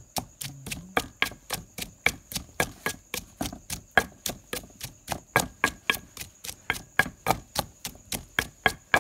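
Wooden pestle pounding shredded green mango in a stone mortar: a steady rhythm of thuds, about three to four a second.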